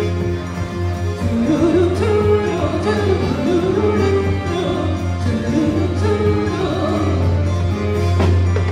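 Loud music for a quadrilha junina dance, with a strong steady bass; a singing voice comes in about a second in.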